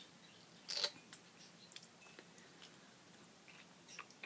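Half an orange squeezed by hand, giving faint wet squishing sounds as the pulp is crushed, with one brief louder noise a little under a second in.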